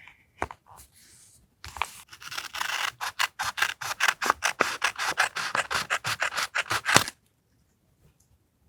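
Quick strokes rubbing and scratching on paper during journal collage work, a fast, dense run of them from about two seconds in that stops abruptly about a second and a half before the end.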